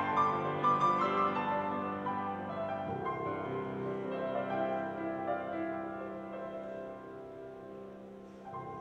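Slow instrumental music with long held chords, growing steadily quieter toward the end.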